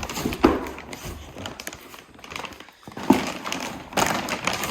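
A box of new dirt-bike plastics being unpacked: rustling and crinkling of the packaging, with a few sharp knocks and thuds as it is handled.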